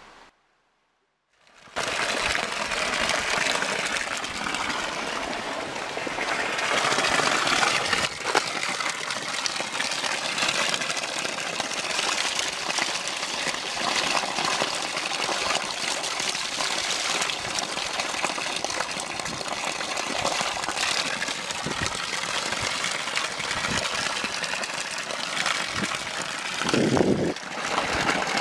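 Steady rushing road and wind noise of a car on the move, starting after about a second and a half of silence.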